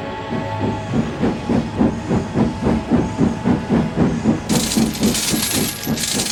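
Steam locomotive sound effect: rhythmic chuffing of about four puffs a second, then two loud bursts of hissing steam near the end.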